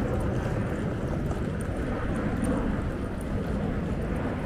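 Steady outdoor street ambience: a continuous low rumble with faint scattered ticks.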